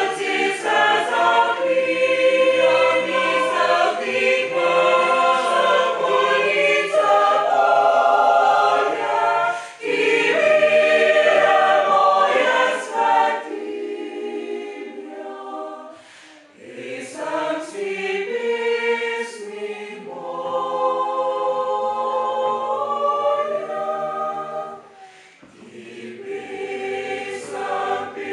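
Mixed choir singing a lullaby in several parts: full, loud phrases for the first half, then softer singing, with short breaks between phrases.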